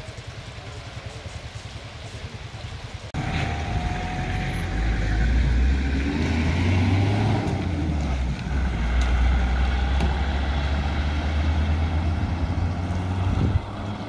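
Road traffic on a mountain highway: vehicle engines running with a steady low rumble as cars drive past, starting abruptly about three seconds in after a quieter stretch and cutting off just before the end.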